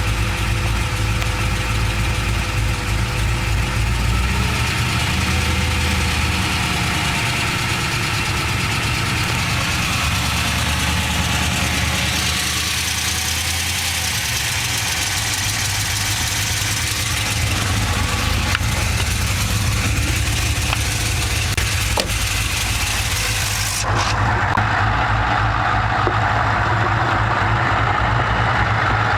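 GM LS2 6.0-litre V8 running at a steady idle with a ticking noise, the fault the owner is showing. The sound turns duller in the last few seconds.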